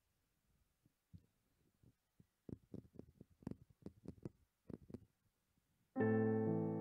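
Faint, irregular soft thumps and taps, then about six seconds in a keyboard chord comes in loudly and rings on, opening a slow song's piano introduction.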